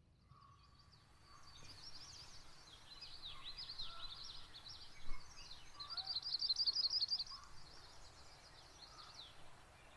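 Songbirds chirping and singing: many short, quick notes, with a fast trill about six to seven seconds in, over a low background hiss. A single sharp click sounds about five seconds in.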